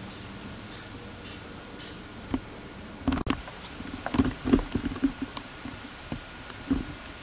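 Steady tape hiss with a cluster of dull thumps and knocks from about three to five and a half seconds in, and one more thump near the end.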